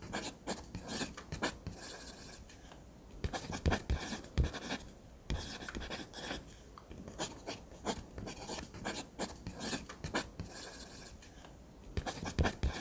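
Close, irregular scratching and rubbing with scattered sharper clicks: handling noise of something being moved around right at the microphone.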